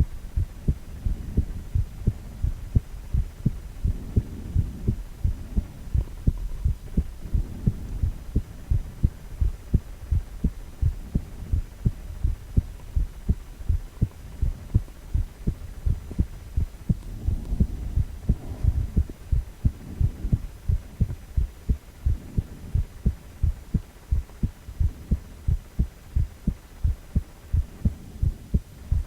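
A man's heartbeat: a steady, even rhythm of low, dull thumps, about two a second, over a low hum.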